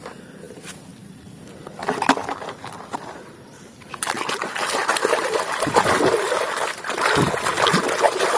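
Water splashing and sloshing as a muddy toy vehicle is washed. The first few seconds hold only a few light clicks, and the splashing starts about four seconds in.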